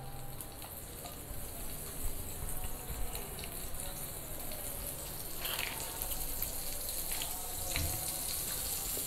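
Butter melting in a hot non-stick frying pan with a soft sizzle that grows louder toward the end.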